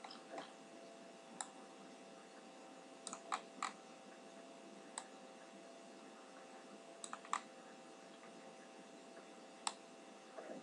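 Sparse clicks of a computer mouse, some single and some in quick pairs or threes, over a faint steady hum.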